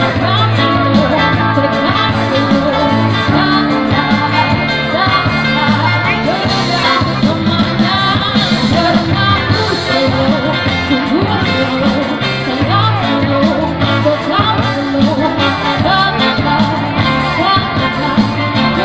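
Street buskers' band playing amplified live music: a vocalist singing over guitar, with a steady bass line underneath.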